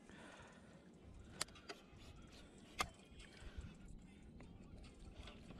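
Faint handling noise with a few light clicks and knocks, the two sharpest about a second and a half apart.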